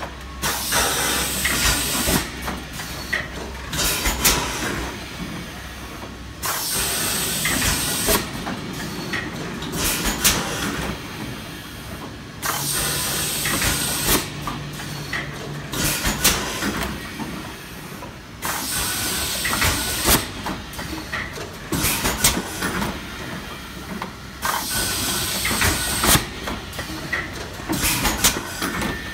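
PET wide-mouth jar blow molding machine cycling. Compressed air hisses in repeated bursts, each lasting up to a couple of seconds, with sharp clicks and clacks of the pneumatic mechanism between them.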